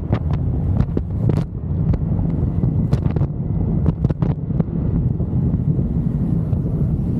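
Strong wind buffeting the microphone: a loud, continuous low rumble, with scattered sharp knocks and clicks, most of them in the first half.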